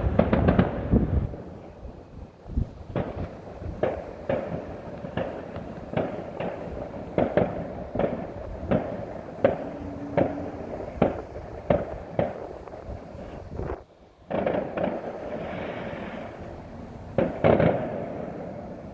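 Fireworks going off: a run of sharp bangs and pops, about one or two a second, loudest at the very start. The bangs break off briefly past the middle, and a cluster of louder bangs comes near the end.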